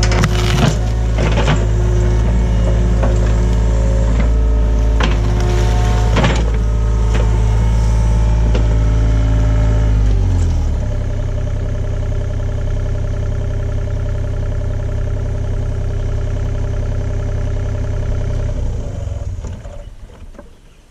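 John Deere 35G mini excavator's diesel engine running at working speed, with knocks and rattles through the first several seconds, then throttled down to idle about halfway through and shut off near the end, dying away.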